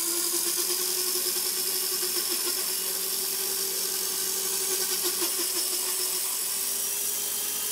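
Align T-Rex 250 electric RC helicopter running at head speed after spooling up: a steady rotor drone with a thin high motor whine above it, its pitch settling and holding. The machine has heavy vibration issues, which the owner suspects come from the rotor head.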